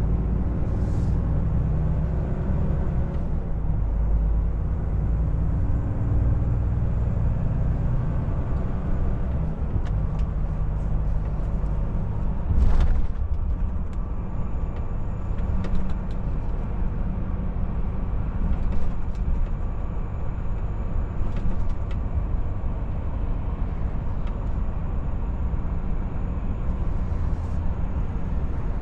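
Volvo FH460 truck's diesel engine and road rumble heard inside the cab, the engine pulling as the truck gathers speed and then cruising steadily. A few short sharp clicks or knocks come through, the loudest about halfway.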